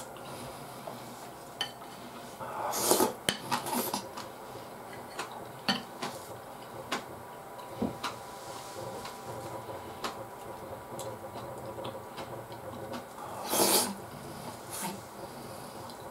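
Metal spoon clinking and scraping against a ceramic plate of curry rice: scattered light clinks, with longer scraping passes about three seconds in and again near the end.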